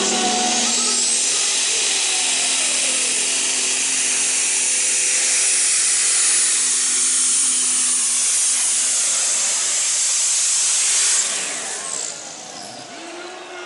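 Turbocharged tractor-pulling tractor's engine at full power under load, a loud, steady rush with a high turbocharger whine. About eleven seconds in it drops away, the pitch falling as the engine winds down.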